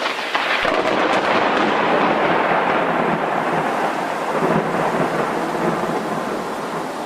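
Thunderclap over rain: a sudden crack of thunder at the start, crackling for about a second, then a long rumble that slowly eases off over the steady rain.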